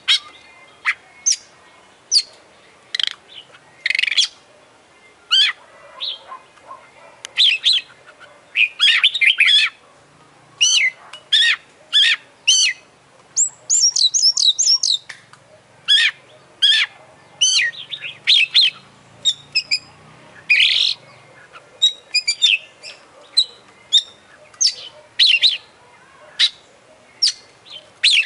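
Oriental magpie-robin (kacer) singing hard: a steady stream of short, varied whistled phrases and chirps, one every half second to a second, with brief gaps between them.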